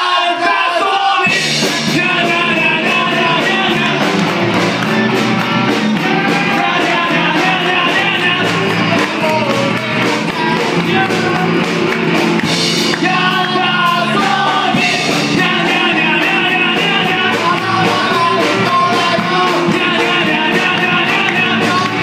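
A live rock band playing: a man singing into a microphone over electric bass, guitar and drums, with the bass and drums coming in about a second in.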